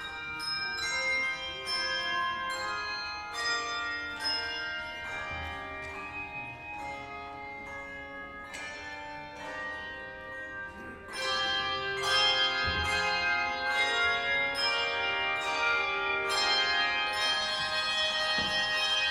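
A church handbell choir playing a piece: many struck bell notes ringing on and overlapping, quieter in the middle, then louder and fuller from a little past halfway.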